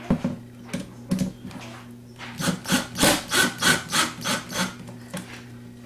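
Ryobi cordless drill driving a screw into the wood of a drawer. A few light clicks, then a rhythmic scraping of about four strokes a second for a little over two seconds as the screw grinds in.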